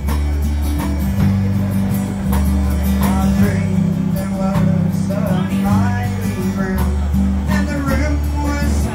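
Live acoustic and electric guitars playing together, strummed chords over deep sustained bass notes, with a melody line coming in over them about three seconds in.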